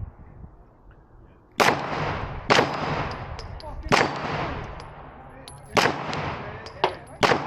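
Pistol fired six times at steel targets, starting about a second and a half in, the shots roughly a second apart with the last two close together; a short high metallic ring follows several shots as the steel plates are hit.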